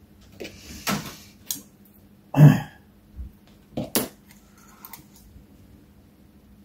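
Hands fitting hose onto the brass pump fittings of a model engine: a few sharp clicks and knocks of small parts, with one louder thump about two and a half seconds in.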